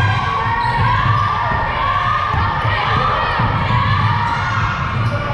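A basketball bouncing on the court during play, a string of repeated thuds, with voices in the gym behind it.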